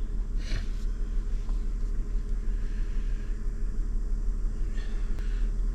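Toyota 4Runner engine idling to warm up after a start in deep cold, a steady low rumble heard from inside the cabin. Two brief rustles, about half a second in and near the end.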